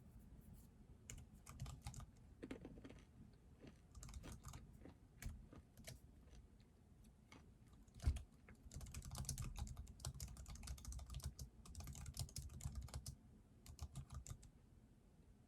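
Typing on a computer keyboard: scattered keystrokes at first, then a dense run of fast typing from about 9 to 13 seconds in. A single louder knock comes just before the run.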